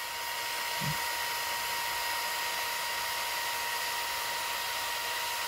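Small electric cooling fan on a radio-controlled car's electronics running: a steady whirring hiss with a faint, steady high whine, and a soft bump about a second in.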